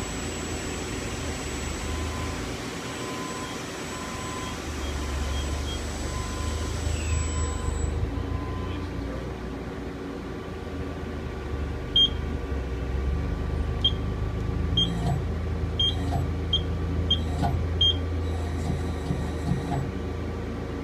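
Kia KiaTurn 21 CNC lathe running with a steady hum and a thin high whine while the spindle turns at about 2,500 RPM. The whine falls away about eight seconds in as the spindle winds down. From about twelve seconds on there is a series of sharp clicks, roughly one a second, as the tool turret indexes.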